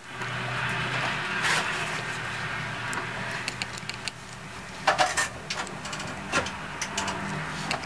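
Scattered light clicks and taps of small parts of a hard-disk MP3 player being handled during a battery replacement, most of them about five to seven seconds in, over a steady low hum.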